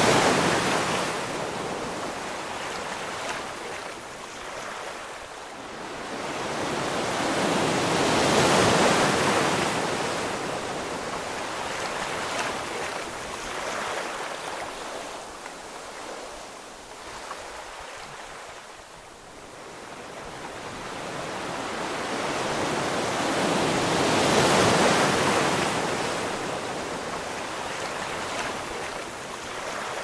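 Ocean waves breaking and washing ashore, the surf swelling and ebbing slowly, with surges at the start, about eight seconds in and about twenty-five seconds in.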